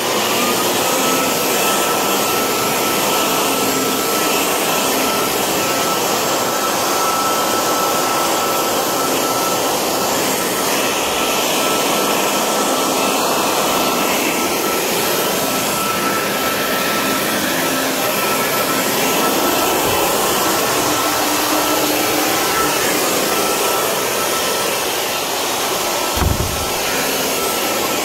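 Corded electric leaf blower spinning up as it is switched on, then running steadily at full speed: a high motor whine over the rush of air, with a brief low thump near the end.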